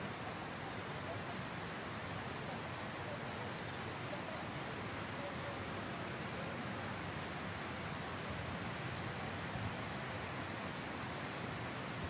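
Steady insect drone, a constant high-pitched tone, over an even hiss of outdoor ambience.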